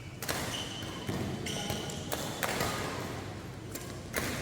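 Badminton rally: sharp racket strikes on the shuttlecock at irregular spacing, with players' shoes squeaking on the court floor.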